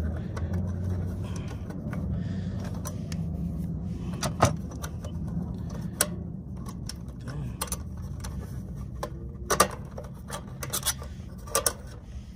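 Wire strippers cutting and handling small control wires, giving scattered sharp metallic clicks and snips, the loudest about four and a half and nine and a half seconds in, over a steady low hum.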